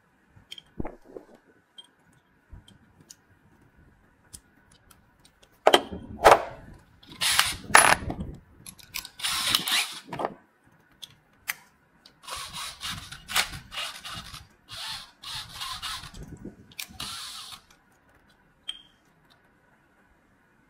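Replacement aluminium-window handle being assembled by hand: scattered small clicks, then two spells of rattling and scraping handling noise, about six to ten seconds in and again from twelve to seventeen and a half seconds.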